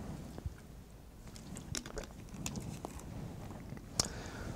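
Faint, scattered clicks and light knocks from small objects being handled at a wooden lectern, with a slightly louder one near the end.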